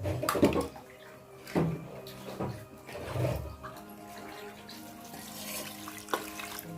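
Water being poured into a pressure cooker, splashing in a few louder gushes, with background music playing.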